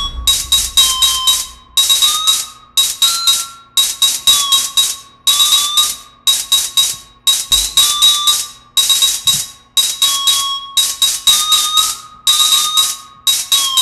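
Korg Volca Drum digital percussion synthesizer running its sequencer: a repeating pattern of bright, noisy hits, each with a short ringing metallic tone that bends slightly in pitch, a bell-like, alarm-like texture. The deep drum part is dropped out, leaving only the high percussion.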